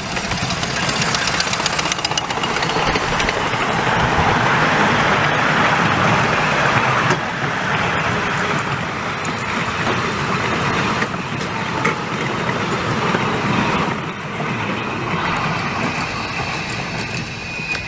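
Miniature 10¼-inch-gauge steam locomotive passing close by with a train of passenger coaches. The engine's running noise swells as it goes past, then the coaches' wheels rumble over the rails with a few sharp clicks. A thin high squeal comes and goes while the coaches roll by.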